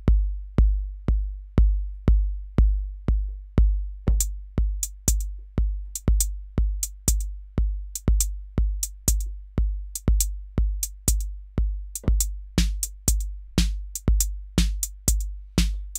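Electronic drum pattern played back from a Native Instruments Maschine MK3 step sequencer. A kick drum falls on every beat, about two a second. Hi-hats join about four seconds in, and a snare on every other beat joins near the end as the patterns are switched while it plays.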